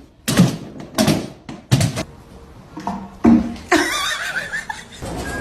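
A series of loud knocks or thumps, about one every 0.7 seconds, then two more a little over three seconds in, followed by a wavering, voice-like cry.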